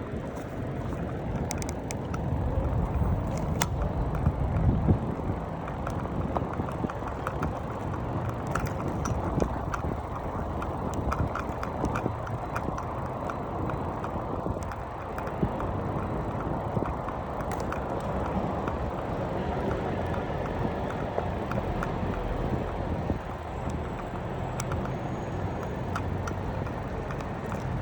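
Bicycle being ridden along a road: a steady rush of wind and tyre noise with scattered light clicks and rattles from the bike throughout.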